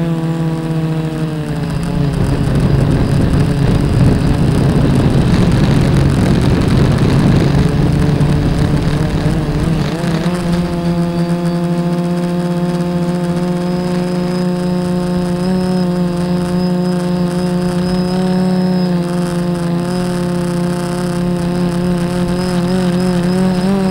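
Quadcopter motors and propellers whining, heard from the onboard camera. The pitch drops about a second in, turns into a louder, shifting tangle of tones for several seconds as the throttle changes, then settles to a steady hum.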